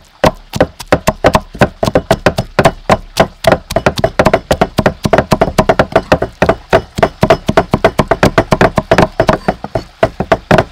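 A cleaver chopping rapidly and steadily into a soft minced mixture with red chillies on a thick round wooden chopping block, about five or six even chops a second.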